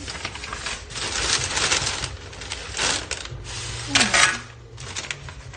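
Paper and a plastic bag crinkling and rustling as they are handled, in irregular crisp rustles, loudest about four seconds in.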